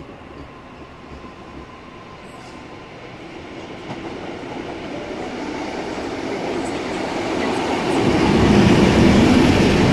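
Two NSW 48 class diesel-electric locomotives hauling XPT carriages approach and pass close by. The diesel engines and the wheels on the rails grow steadily louder from about four seconds in, and are loudest over the last two seconds as the locomotives go by.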